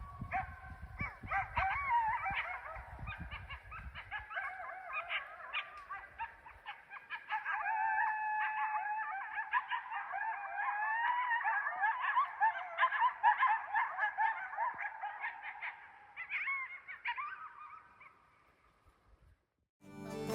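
Chorus of many overlapping animal calls, high wavering cries and honks, some short and some drawn out, fading out near the end.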